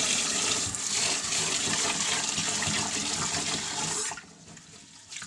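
Kitchen tap running water into a metal pot of rice in a stainless-steel sink, as the rice is washed for cooking; the flow stops suddenly about four seconds in.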